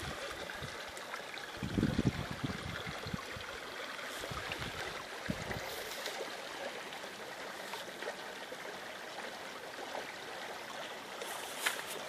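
Steady rushing and trickling of a small stream's flowing water, with a few brief low rumbles about two seconds in and again a little after five seconds.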